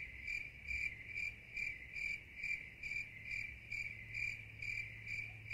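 Crickets chirping in an even pulsing rhythm, about three chirps a second, over a faint steady hum: a stock 'crickets' sound effect edited in to mark an awkward silence.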